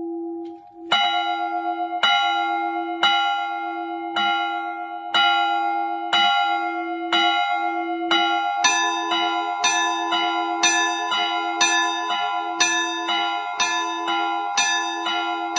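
Orthodox church bells ringing: strikes about once a second, each ringing on. About nine seconds in, further bells join and the strokes quicken to roughly two a second.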